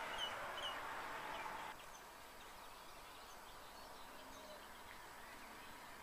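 Birds calling at dawn: a few short, repeated chirps in the first second, then scattered faint high calls. A steady hiss sits under the first part and cuts off suddenly at about two seconds in.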